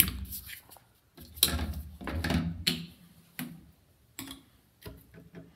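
Handling noise: scattered clicks, knocks and rustling as small plastic toiletries are picked up and set down on a countertop.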